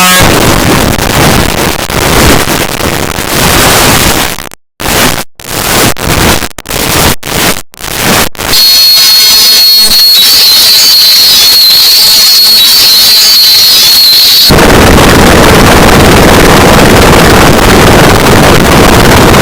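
Harsh, heavily distorted noise at full loudness. It stutters on and off several times in the middle, then carries a high steady whine over hiss for several seconds before dense noise returns.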